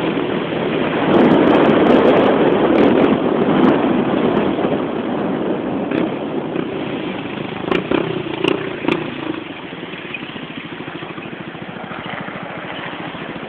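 Motorcycle riding: engine and wind noise, loudest in the first few seconds, then dropping at about ten seconds to a quieter, steady engine beat as the bike slows.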